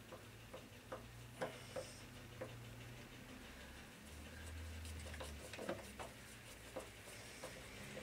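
Faint, irregular small clicks and taps of a screw being fiddled blindly into its hole on a washing machine motor, with the hand and screw knocking against metal and plastic parts.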